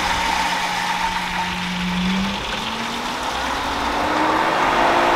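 Pool pump motor starting up and ramping its speed: a steady hum whose pitch climbs, stepping higher about two seconds in and rising again later. A rushing noise grows louder as it speeds up.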